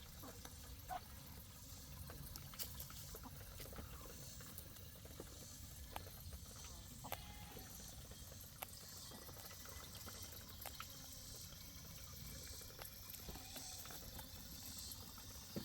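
Water from a garden hose running into a 5-gallon water container as it fills, a faint steady trickle with a few light clicks.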